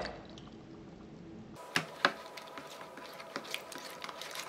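A metal spoon stirring borax solution into a bowl of glue and liquid foundation as it turns to slime: wet squishing with sharp clicks and scrapes of the spoon against the bowl, two loud clicks about two seconds in. At the very start, the last of the borax water splashes in.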